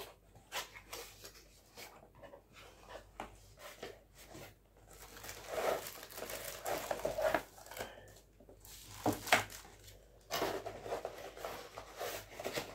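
A hair dryer's retail box being opened and unpacked by hand: wrapping crinkling and rustling, with scattered clicks and knocks as the box and its contents are handled.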